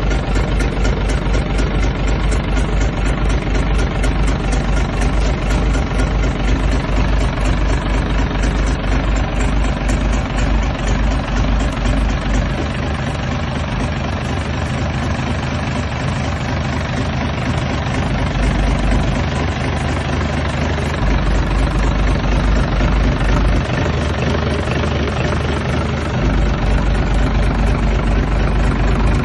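Isuzu 6HE1 inline-six diesel engine running steadily at a low speed, with a fast, even pulsing beat. Its deep low end weakens about twelve seconds in and comes back strongly a couple of times toward the end.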